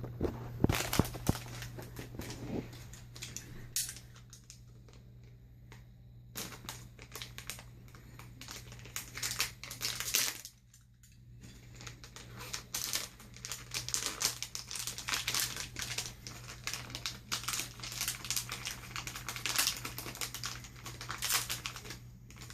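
Cellophane wrapping crinkling and tearing as it is pulled off a packaged item, in irregular crackly bursts with a short pause about halfway through.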